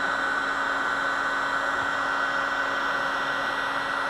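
Wagner heat gun running steadily, its fan blowing a constant rush of hot air with a steady hum underneath.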